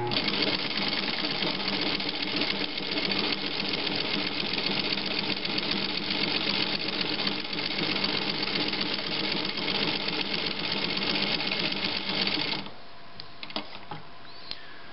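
Singer 15-91 sewing machine running steadily on its built-in gear-drive motor, sewing a zigzag stitch through cloth with a Singer Automatic ZigZag attachment working the needle. It stops abruptly about two seconds before the end, and a few faint clicks follow.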